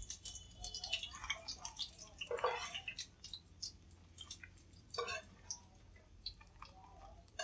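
Fried tofu being scooped out of hot oil with a slotted metal ladle and dropped into a ceramic bowl: oil crackling and dripping, with light clicks and taps of the pieces and ladle. Two louder knocks come about two and a half and five seconds in.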